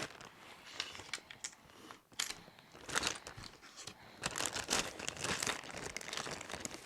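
Small plastic parts bags crinkling and rustling as they are handled, in short irregular rustles.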